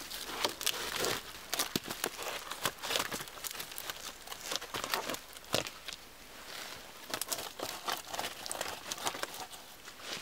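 Dry pine bark and dead sticks being handled and fitted against a stick shelter frame: irregular crisp crackling, scraping and rustling of bark and dry leaves, with one sharper knock about halfway through.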